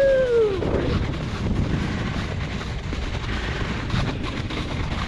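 A steady siren-like tone drops in pitch and dies away within the first second. Then there is a rough, steady rumble of a snowscoot's boards sliding over snow, with wind on the microphone.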